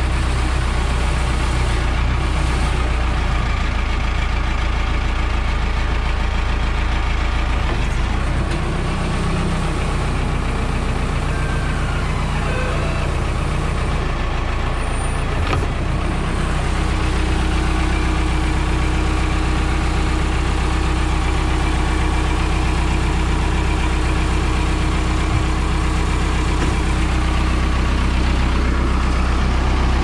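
Case 580 Super L backhoe's four-cylinder diesel engine idling steadily.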